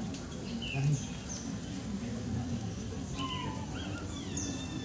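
Small birds chirping and twittering in short, high calls, many of them falling in pitch, with a cluster of calls about three to four seconds in, over a low murmur of people.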